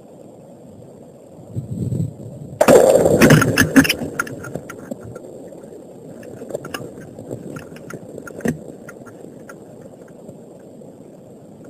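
Rifle shots: a sudden loud report about two and a half seconds in, followed by several more sharp cracks within the next second and a half, then dying away with a few faint knocks. A duller thump comes about a second before the first shot.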